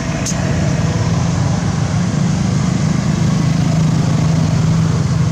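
A small engine running steadily, with a low hum.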